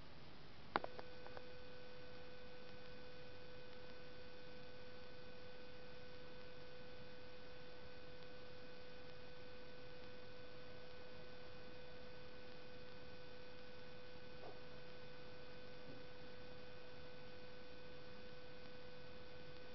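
A sharp click about a second in, then a steady pitched hum that holds unchanged without fading.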